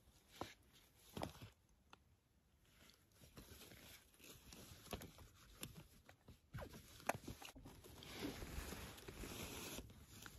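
Faint handling noise as a fabric pronghorn antelope decoy is unfolded and set up in dry grass: scattered light clicks and crinkles, becoming a steadier rustle about eight seconds in.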